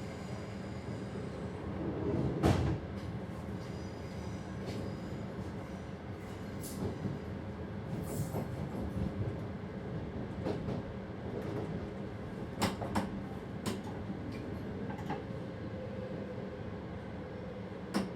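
Passenger train running on the track, heard from inside the driver's cab: a steady low rumble with sharp wheel clacks over the track, the loudest about two and a half seconds in and a few more close together around twelve to fourteen seconds.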